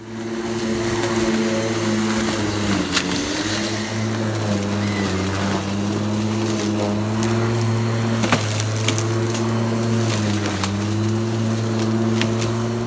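Corded electric lawn mower with a 35 cm cut, running steadily as it is pushed through long grass. Its motor hum drops briefly in pitch a few times as the blade slows in thicker grass, with scattered ticks and crackles of cuttings striking the blade and deck.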